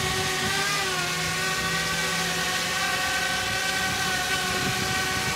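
Quadcopter drone's propellers whining steadily in flight, several tones at once, the pitch dipping briefly about a second in.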